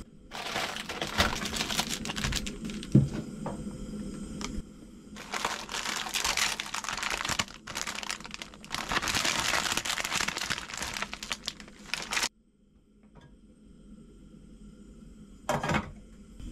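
Plastic packaging of a packet of fresh ramen noodles crinkling and rustling as it is handled, in several long stretches with a sharp knock about three seconds in. It stops at about twelve seconds, and one short rustle comes near the end.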